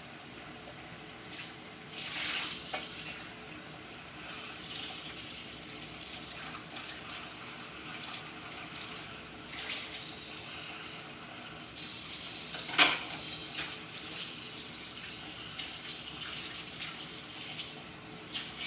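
Kitchen sink tap running steadily as dishes are rinsed under it, with a few brief splashes and one sharp knock about two-thirds of the way through.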